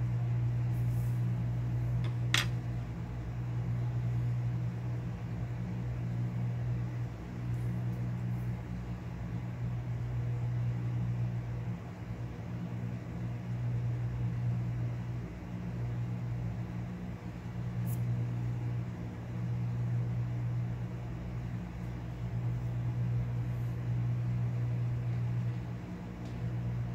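Steady low machine hum, slowly rising and falling in level, with a single sharp click about two seconds in.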